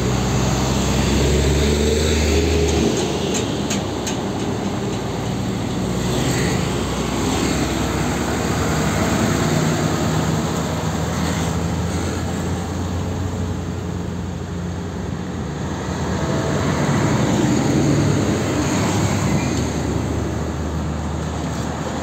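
Heavy diesel trucks passing one after another on an uphill road. Their engine drone and tyre noise swell and fade as each goes by, with a loud low engine hum in the first few seconds as an Isuzu cargo truck passes, and a concrete mixer truck going by about halfway.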